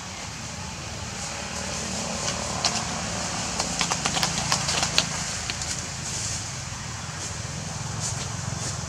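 Dry leaves and twigs crackling, with a cluster of sharp snaps and cracks around the middle, over a steady low hum.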